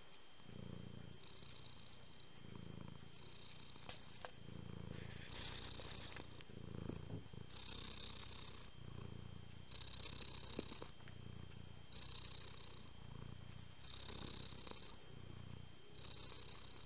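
Domestic cat purring, the purr rising and falling with each breath about every two seconds.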